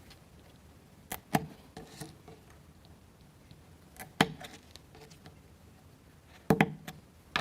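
Wooden toothpicks being cut in two, giving a few short, sharp snaps spaced a few seconds apart.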